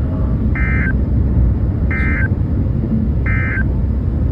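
Three short buzzy digital data bursts of the EAS end-of-message code on a NOAA Weather Radio broadcast, about a second and a half apart, marking the end of the warning. A steady low rumble of background noise runs underneath.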